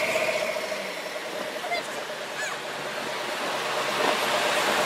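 City traffic heard from inside a car, with car engines running and a steady droning tone throughout; the sound dips in the middle and grows louder again about four seconds in.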